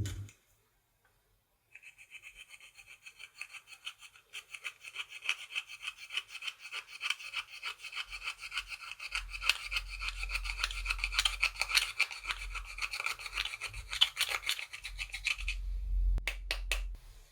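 Rapid, repeated scraping and squishing strokes as clear slime is worked and stirred with eyeshadow mixed into it. The strokes start a couple of seconds in, get louder partway through and stop, followed by a few sharp clicks near the end.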